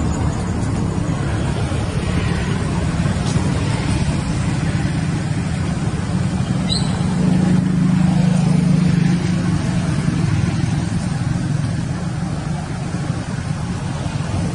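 Steady low engine hum over background noise, swelling a little about halfway through, with one brief faint click near the middle.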